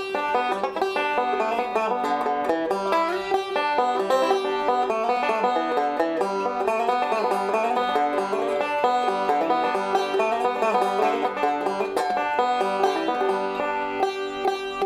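Fender Leo five-string resonator banjo being played, a quick, continuous stream of picked notes.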